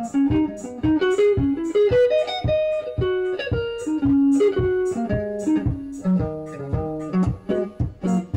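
Solo electric guitar improvising unaccompanied: a run of plucked single notes and some two-note chords in the middle register, several notes a second.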